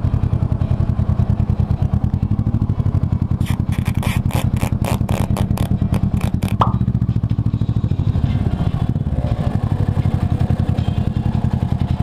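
Kawasaki ER-6n's 649 cc parallel-twin engine running steadily at low revs while the bike creeps through slow traffic. A quick run of about ten sharp rattling knocks comes a few seconds in, ending with a short squeak.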